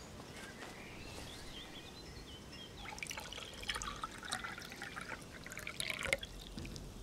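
Water trickling and dripping in small, quick splashes for about three seconds, starting about three seconds in and stopping suddenly.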